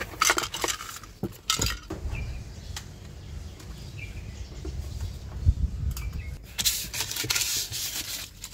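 Items being taken out of a plastic car glove box: hard objects knock and clink against each other and the compartment, a few sharp knocks in the first two seconds, then papers rustling near the end.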